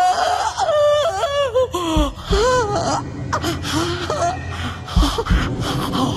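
A person whimpering and wailing in fright, a high wavering voice in short rising-and-falling cries, fading into breathy gasps after about three seconds, with a few low thumps.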